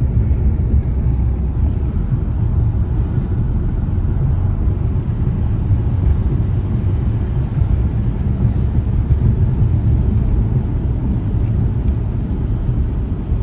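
Steady low road rumble inside a moving car's cabin, the tyres running on a wet highway, with no siren heard.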